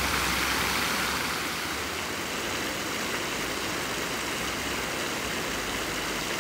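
Steady outdoor city ambience: the rushing splash of a park fountain's water jets with a low hum of street traffic underneath, easing slightly about two seconds in.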